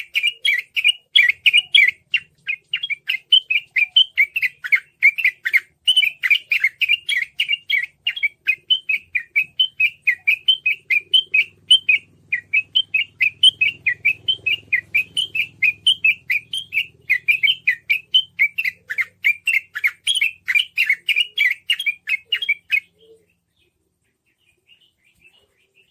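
Yellow-vented bulbul (trucukan) singing its rapid 'ropel' song: a fast, continuous string of short chattering notes that stops about 23 seconds in, followed by near silence and a few faint notes.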